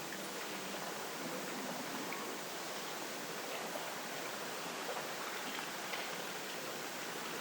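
Steady rush of wind on a windy autumn night, an even hiss without pitch, with a few faint ticks scattered through it.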